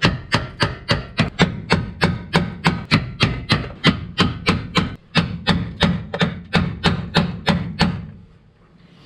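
Hammer tapping a punch-style tap tool in a fast, even run of sharp strikes, about four or five a second, stopping about 8 s in. The taps drive the fuel pump module's locking ring around into its locked position.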